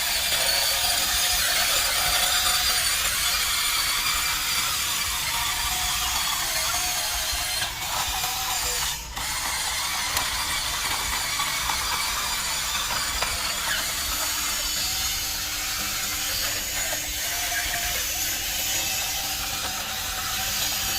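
Electric motors and plastic gearboxes of a radio-controlled toy construction vehicle whirring and clicking as it works, dropping out briefly twice near the middle.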